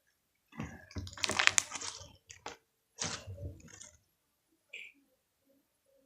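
Homemade slime being squished and handled in the hands: two stretches of crackly, clicking noise, about a second in and again around three seconds in.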